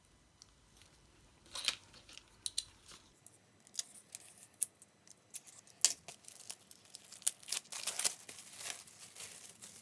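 An album's packaging being handled and opened by hand: scattered, irregular crinkling and crackling.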